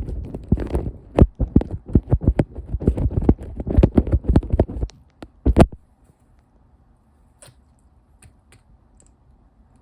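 Makeup tools tapping and rubbing directly on a camera lens, heard very close: rapid, dense taps for about five seconds, one loud thud, then only a few faint ticks.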